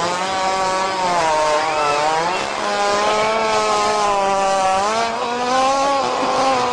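A long, loud, buzzing fart with a wavering pitch, shifting pitch a couple of times as it goes.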